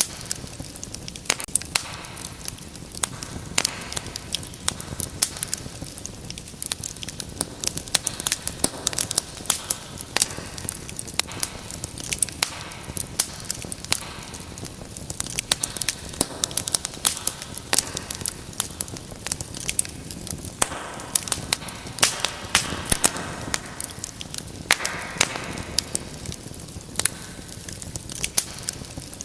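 Wood fire crackling steadily, with frequent irregular sharp pops and snaps over a soft rushing hiss of flame.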